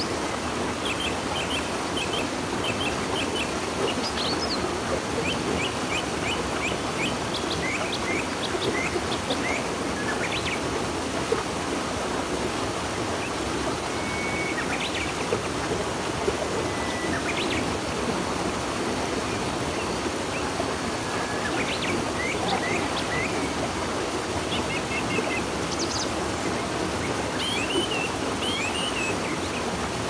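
River water rushing steadily, with birds chirping over it: many short chirps and a few brief whistled notes.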